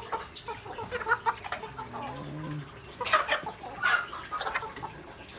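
A flock of native chickens clucking and calling in short, irregular bursts as they feed, with a couple of louder, sharper bursts about three and four seconds in.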